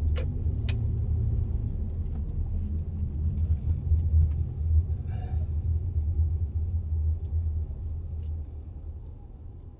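Low rumble of a car's engine and tyres heard inside the cabin while driving, easing off near the end, with a few sharp clicks.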